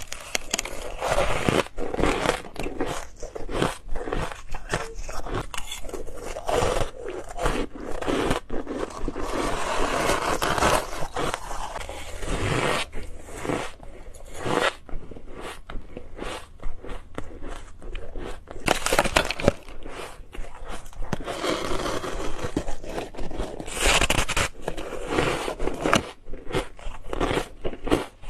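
Ice being bitten and crunched close to the microphone: a dense, irregular run of sharp cracks and crunches from repeated bites and chewing.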